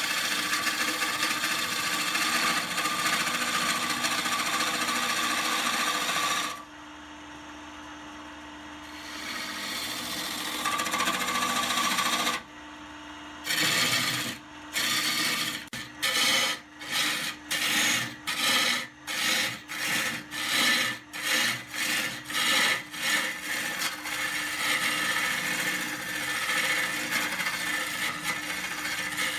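Wood being worked on a turning lathe, a tool or abrasive scraping against the spinning workpiece. The steady rasping eases off about six seconds in and builds back up. It then comes in even back-and-forth strokes, about one and a half a second, for some ten seconds before settling into a steady scrape again.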